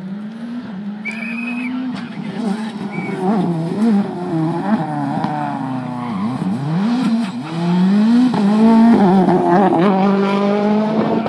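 Rally car engine revving hard through gear changes and lifts as the car comes along the stage, getting louder and loudest about nine seconds in as it passes.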